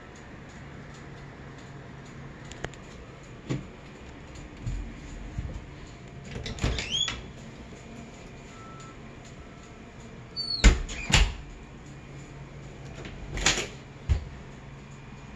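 Interior closet door being handled: lever handle and latch clicks, a short rising squeak about seven seconds in, and sharp knocks of the door around eleven seconds in, the loudest sounds, with a few more knocks near the end.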